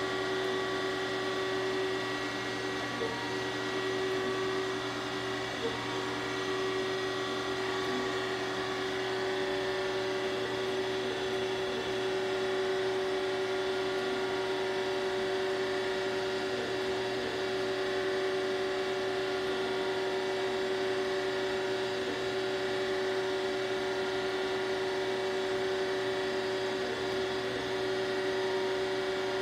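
Surface grinder running, its motors giving a steady whine with several constant tones that hold unchanged throughout.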